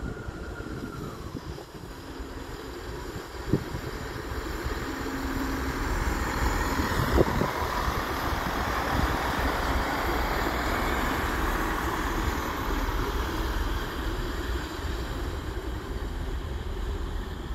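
GWR Turbo diesel multiple unit running past on the station tracks: diesel engine hum and wheels rumbling on the rails, growing louder about six seconds in and holding steady. A high whine fades out in the first second, and there are two sharp knocks, the louder one about seven seconds in.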